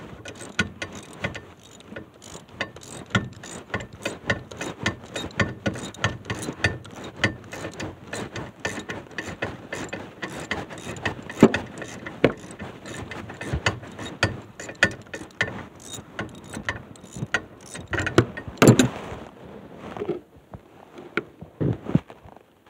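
Socket ratchet wrench clicking rapidly as it turns bolts on an old car's rear axle housing, with a few louder metal knocks. The clicking thins out near the end.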